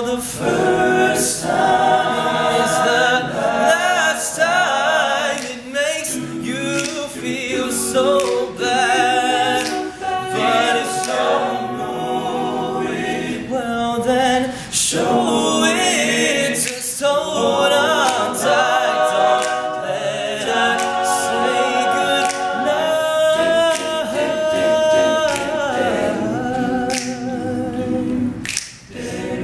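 All-male a cappella group singing in harmony, with a lead voice in front of the backing voices, and sharp percussive clicks keeping the beat.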